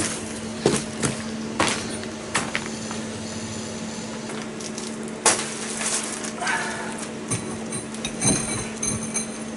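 Scattered knocks and metallic clinks of tools being handled while a core drill is set up against a cinder-block wall, over a steady low hum.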